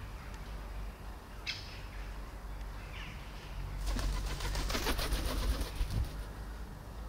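Birds outdoors: a short high chirp about a second and a half in, then about two seconds of rapid fluttering wing beats from about four seconds in, like a pigeon taking off, over a steady low background rumble.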